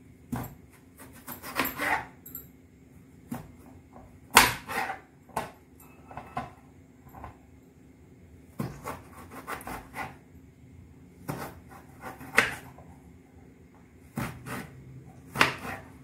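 Kitchen knife slicing a peeled raw potato on a plastic cutting board: crisp cuts and taps of the blade on the board, coming in short clusters every second or two.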